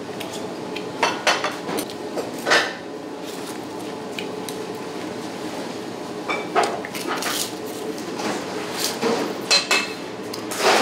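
Ceramic bowls, dishes and chopsticks knocking and clinking on a table during a meal: a dozen or so scattered short clinks and knocks over a steady low room hum.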